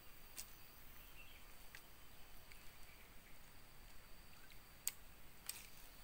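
Faint outdoor background of steady hiss and a thin, high, steady hum, with four sharp clicks, the loudest about five seconds in.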